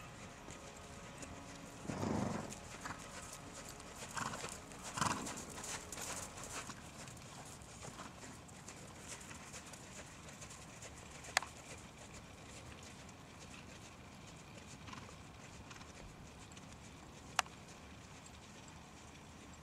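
Hanoverian mare's hooves beating on sand arena footing at the trot. A few louder bursts of sound come in the first five seconds, and there are two sharp clicks, about eleven and seventeen seconds in.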